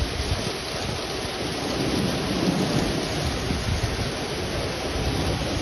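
Heavy rain falling steadily on surfaces, with a low rumble that swells about two seconds in.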